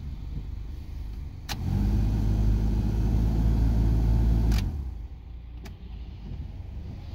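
Inside a stopped car, a steady low hum switches on with a click, runs about three seconds and cuts off with another click. A further single click follows about a second later.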